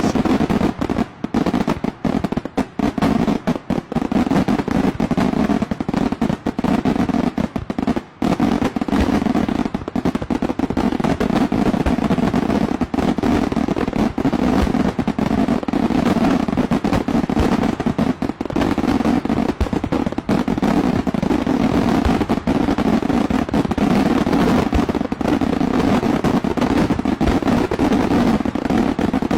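Daylight fireworks going off in a dense, continuous barrage of bangs, with a few brief gaps in the first several seconds: a fireworks finale.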